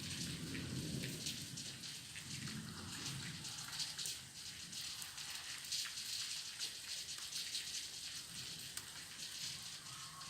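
Rain pattering as a dense crackle of drops, with a low rumble that swells twice in the first few seconds and then fades.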